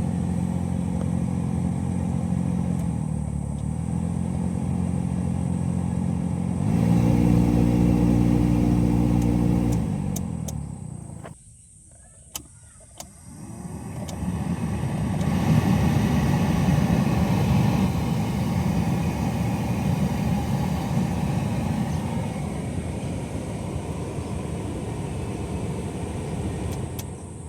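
Car AC blower motor running, stepping up in speed about seven seconds in, then switched off with a few clicks. It starts again with a louder rough rushing noise, the abnormal blower noise that needs fixing.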